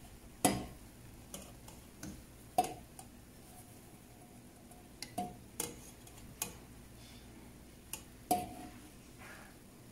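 Perforated steel skimmer clinking against a stainless steel bowl and stockpot while foam is skimmed off simmering broth: about ten irregular metallic taps, several ringing briefly.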